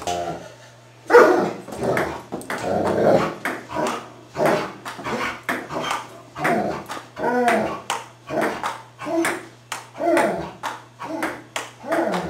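Ping-pong ball clicking repeatedly off paddles and the table during a rally, mixed with a German shepherd's barks and whines.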